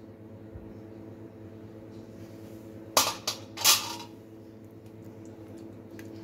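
Metal skewer clattering twice against a steel tray, about three seconds in, over a steady low hum.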